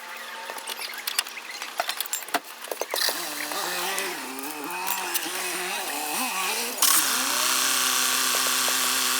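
Sharp metallic clicks of hand tools, then a power drill running, first wavering in speed for a few seconds and then held at a steady whirr, as the new sway bar link nuts are run on.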